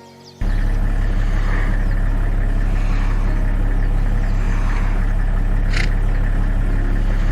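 A loud, steady, low engine-like drone that cuts in abruptly just under half a second in and holds at an even level throughout.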